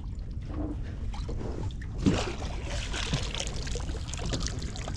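Water trickling and lapping around a small fishing boat, over a steady low background noise, with a hiss of splashing in the second half.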